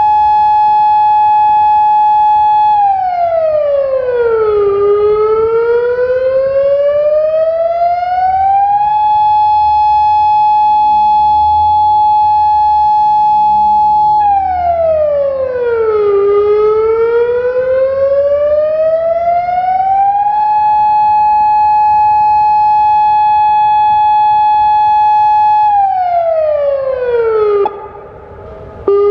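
Federal Signal Modulator 6048 electronic warning siren running an erratic, malfunctioning pattern: a steady tone held for several seconds, then a quick drop in pitch and a slower climb back up, twice over. Near the end the pitch falls again and the sound briefly cuts out before resuming.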